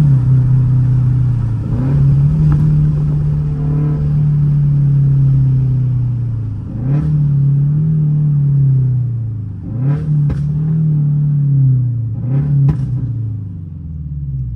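Performance car engine pulling hard, its note climbing and dropping back sharply several times as through gear changes. Sharp cracks come at some of the drops, about halfway through and twice near the end.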